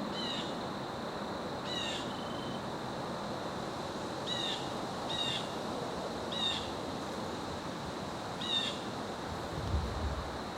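A bird giving short, high calls, six of them at uneven gaps of one to two seconds, over a steady rush of wind.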